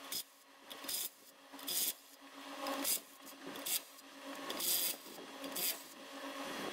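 Cordless impact wrench run in short bursts, spinning the lug nuts off a trailer wheel, with a rasping, rattling sound. About seven brief bursts come a half-second to a second apart.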